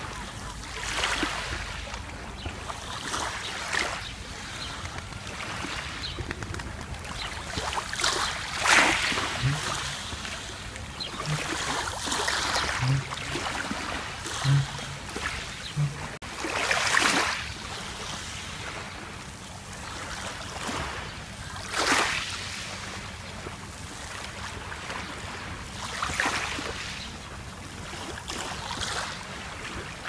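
Small waves lapping onto a pebble beach on a calm sea, each wash swelling up and falling back every few seconds.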